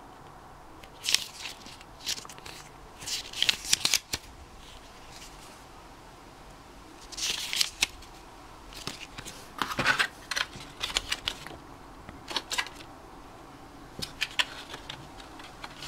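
Hands handling a small box and its paper and plastic packaging: rustling and light clicks in irregular bursts, with short pauses between them.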